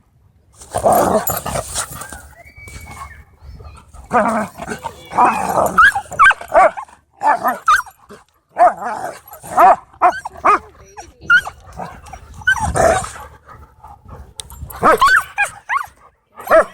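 Dogs playing rough, growling harshly in long rasping stretches, with many short barks and yips in between.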